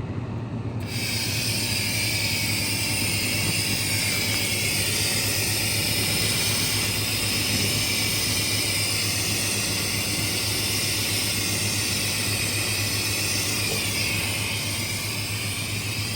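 Handheld laser welding-and-cleaning gun firing in cleaning mode at 1500 W: a steady hiss switches on about a second in. Under it runs the machine's steady low hum.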